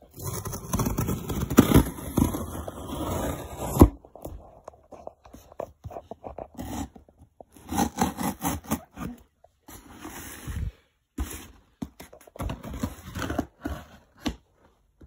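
A scissors blade drawn along the taped seam of a cardboard box, slicing through the packing tape and scraping the cardboard. One long cut runs for the first few seconds, followed by several shorter cuts later on.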